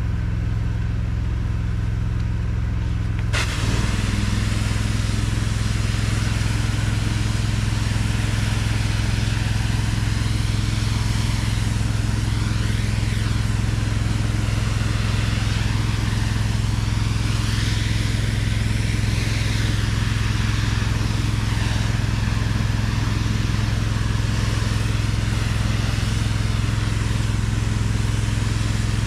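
Pressure washer's engine running steadily. Just over three seconds in, the spray suddenly starts with a loud hiss that continues.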